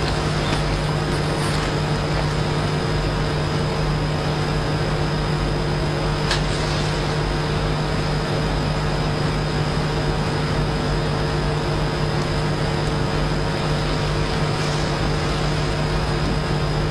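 Steady background hum and hiss with a low drone and a few faint steady tones over it, unchanging throughout, and one faint click about six seconds in.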